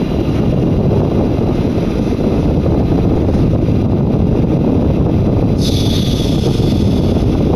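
Steady loud rumble inside a Z20900 RER C train standing at an underground platform, with a high hiss that starts about five and a half seconds in and cuts off sharply about two seconds later.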